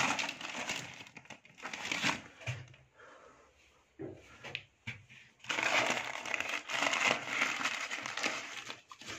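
Thin plastic bags of dried herbs crinkling and rustling as a hand rummages through them in the box's compartments. There is a burst in the first two seconds, then a few short rustles, then a longer stretch of crinkling from about halfway through.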